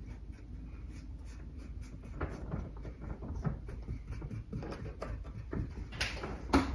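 Hands pressing and brushing gritty bonsai soil mix in a ceramic pot: a run of small, irregular crunching scratches and clicks, with a louder brushing scrape near the end.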